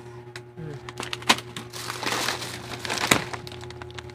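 Thin plastic grocery bags and snack wrappers crinkling as hands rummage through them, with two sharper crackles, about a second in and near three seconds in.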